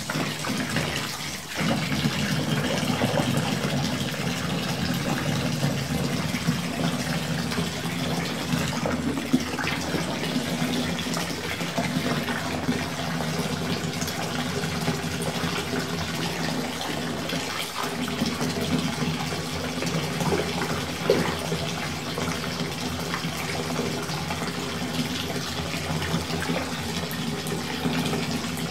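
Bath tap running steadily, filling a bathtub with water.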